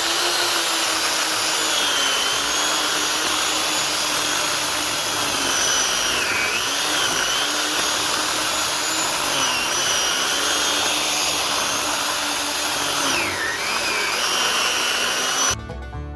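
Worx 14-inch corded electric chainsaw (WG305) running flat out on a dull chain, a loud steady motor whine whose pitch dips briefly twice, around six seconds in and again near the end, as the motor slows under load. It cuts off abruptly near the end.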